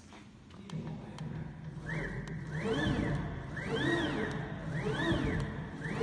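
Double-spindle CNC router running with both spindles engaged: a steady low hum comes in under a second in. From about two seconds in, a motor whine rises and falls in pitch about once a second, the drives speeding up and slowing down as the machine makes short repeated moves.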